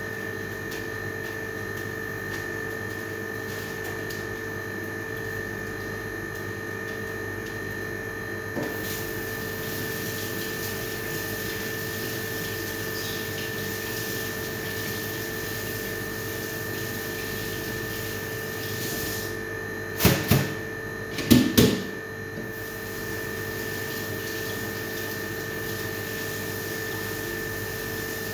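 Kitchen tap running into a sink over a steady appliance hum with a high whine, and twice, about two-thirds of the way through, a brief loud clatter of dishes or a pot knocked against the sink.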